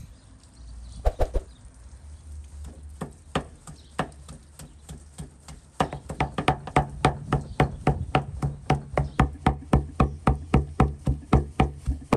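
Heavy cleaver chopping raw meat into mince on a wooden tree-stump block. A few scattered chops at first, then from about halfway in a fast, steady rhythm of about four chops a second.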